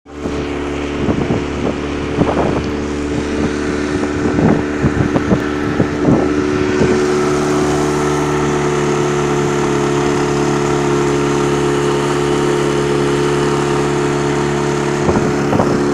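A motorboat's engine running steadily under way, with a low note added about seven seconds in. Wind on the microphone and irregular bumps come through over it during the first several seconds.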